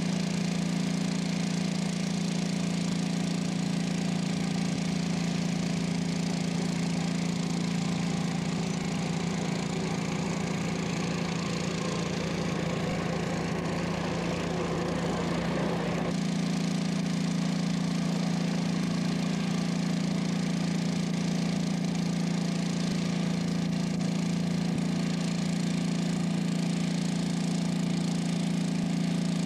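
An engine running at a steady speed, a constant low drone; from about eleven seconds in it grows rougher and noisier for a few seconds, then settles back to the steady drone.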